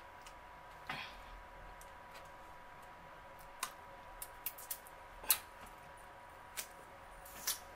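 Quiet eating: a scattering of small, sharp clicks and smacks from chewing and wooden chopsticks, over a faint steady tone.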